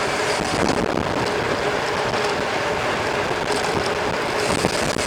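Steady rushing wind on the microphone of a mountain bike being ridden, with rolling noise and a few small rattles.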